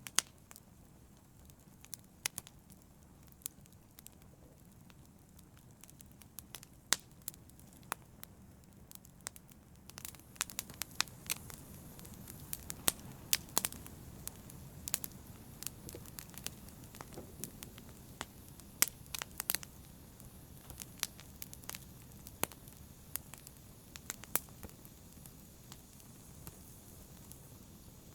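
Fire crackling in a fireplace: scattered sharp pops and snaps over a low, steady hiss, growing busier and louder about ten seconds in.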